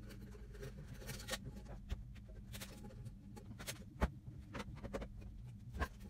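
Ceramic-fibre insulation being pushed and fitted into a gutted microwave cabinet by gloved hands: soft scraping with a handful of sharp clicks and knocks against the cabinet.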